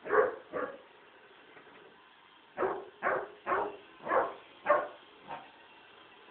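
Basset hound puppy barking at a robot vacuum cleaner that frightens him. Two short barks come near the start, then a run of six about half a second apart from about two and a half seconds in, the last one fainter.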